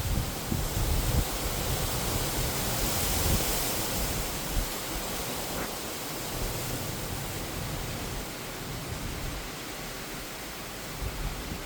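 Heavy storm rain and gusting wind: a steady, even hiss, with irregular low buffeting from wind on the microphone, strongest in the first few seconds.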